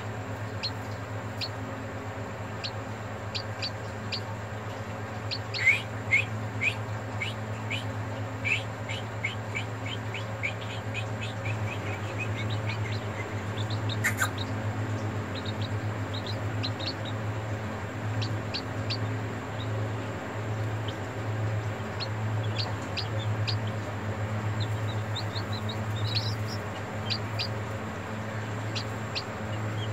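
Newly hatched chicken chicks peeping: short, high, downward-sliding peeps, at times in quick runs of about two a second, over a steady low hum. A single sharp click comes about midway.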